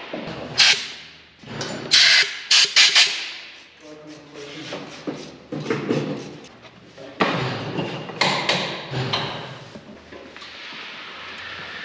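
Hand tools knocking and clanking on metal during brake work: a quick run of sharp knocks in the first three seconds, and more about seven to eight seconds in.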